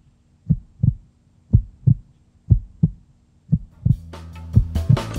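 Heartbeat-like double thump, low and about once a second, opening a music track; about four seconds in, music swells in beneath it and drum hits begin.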